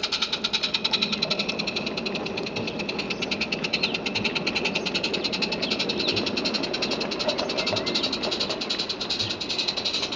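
Small live-steam garden-railway locomotive on 32 mm gauge track, running past at close range with a rapid, even beat from its exhaust and a rumble of wheels on the rails as its coaches and wagons follow.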